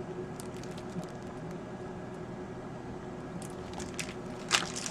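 Microwave oven running, a steady hum, while a stew cooks inside; a short rustle or click near the end.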